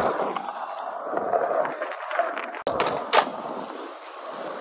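Skateboard wheels rolling over concrete, with a sharp clack of the board a little past halfway.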